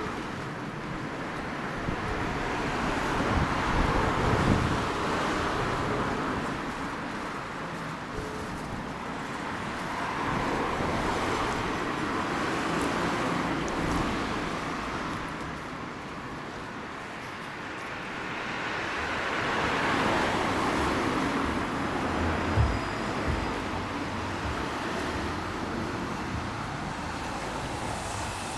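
Street traffic going past: a steady road noise that swells and fades as vehicles pass, three times over, with one short thump about three quarters of the way through.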